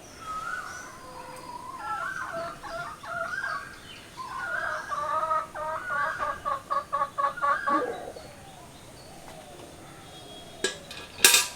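Chickens calling, with a run of quick clucks about three a second that ends in a falling note. A quieter lull follows, then two sharp clicks near the end.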